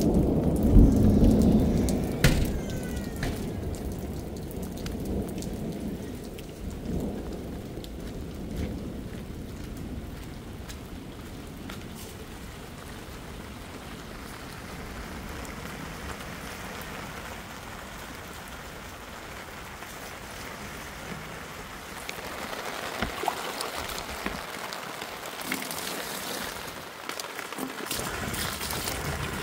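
Steady rain falling on plastic sheeting and wet ground, with a heavy low rumble in the first two seconds. In the last several seconds, a stream of water splashes into a plastic jerry can.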